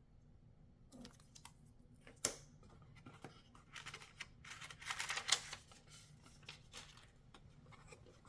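Hands handling a folding knife's box and packaging: scratchy rustling and scraping, with a sharp click about two seconds in and the busiest, loudest rustling around the middle.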